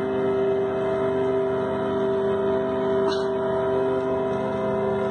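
The so-called 'trumpets of the apocalypse' sky sound: a steady, horn-like drone of several held tones sounding together. A brief higher noise cuts across it about three seconds in.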